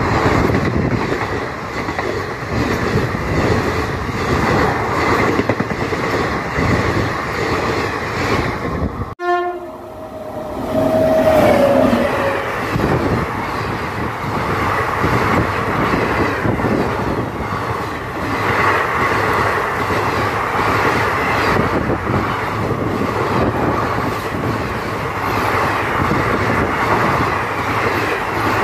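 Indian Railways passenger coaches rushing past close by, a steady rumble and clatter of wheels over the rails. The sound breaks off abruptly about nine seconds in as a second train takes over, and a train horn sounds for about two seconds shortly after, its pitch sagging slightly.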